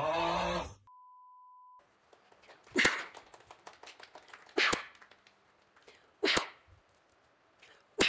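A voice calls out briefly and a short steady beep follows. Then come sharp, forceful blasts of breath, blown out like coughs close up, about every second and a half: three of them, with a fourth at the very end.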